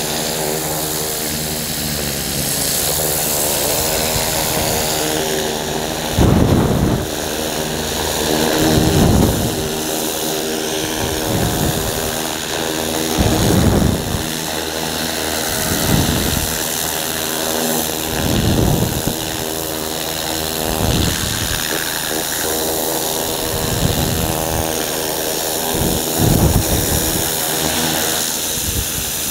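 Pressure washer running steadily while it blasts the concrete foundation and stucco clean, its water jet rising in surges of spray noise about every two to three seconds.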